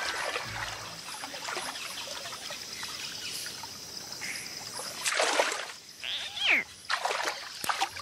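Shallow water trickling and lapping as a young crocodile moves through it, with a splash about five seconds in and further short splashes and a click near the end. Around six seconds in comes one high call that falls steeply in pitch.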